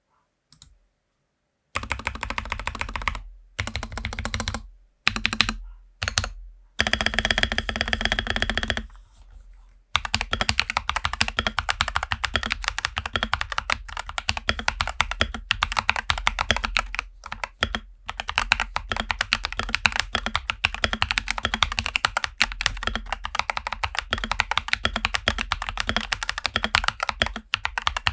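Akko 3068S mechanical keyboard, tape-modded with factory-lubed stabilisers, foam and dampeners, being typed on in a sound test. After a short silence come several separate bursts of fast key presses, then steady continuous typing from about ten seconds in.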